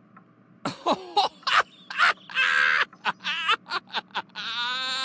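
A person laughing loudly in a run of short, choppy bursts, ending in one longer, wavering laugh that cuts off suddenly.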